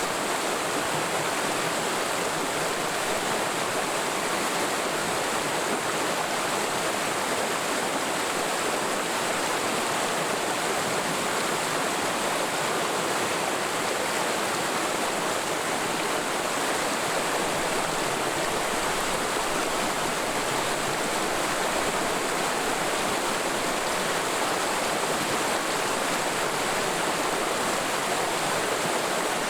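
Mountain stream flowing over rocks in a forested valley, a steady rushing and splashing of water with no pauses or changes.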